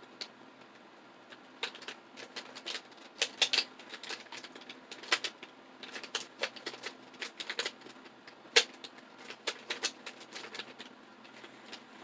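A plastic puzzle cube being turned by hand: irregular quick clicks and clacks as its layers rotate, starting about one and a half seconds in.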